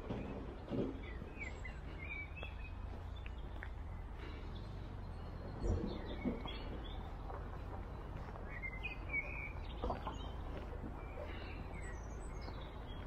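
Birds chirping and singing in short bursts over a steady low rumble, with a few soft thumps, the loudest about six seconds in.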